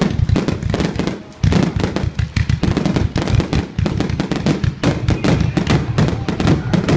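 Aerial fireworks display: a rapid barrage of shell bursts and crackling reports. It eases briefly about a second in, then runs on dense and continuous.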